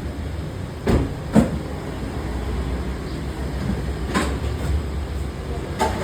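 A steady low rumble with four sharp knocks or clanks, the loudest about a second and a half in.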